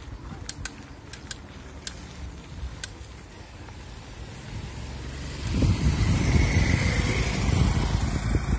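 A motorcycle comes up and passes close beside a moving bicycle; its engine and tyre noise swell loudly from about five and a half seconds in. Before that there is a low rumble of wind and tyres with a few light clicks.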